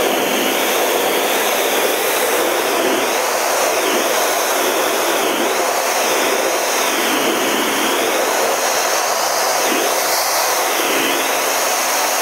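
Steady rush of a CT-114 Tutor jet's turbojet engine and the airflow over the canopy, heard from inside the cockpit in flight.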